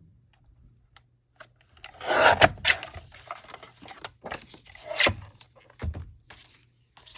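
Paper trimmer blade drawn through a sheet of paper, a rasping cut of about a second with clicks, then more clicks and a knock as the trimmer is handled. The user wonders whether the blade is getting dull.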